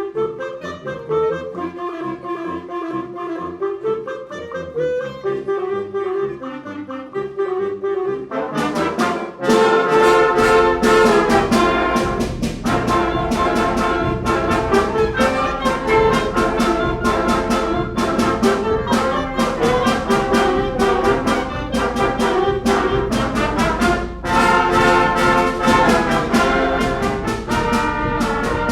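Concert band playing a fast galop: a softer passage at first, then about nine seconds in the full band comes in loud, brass to the fore, with sharp percussion hits.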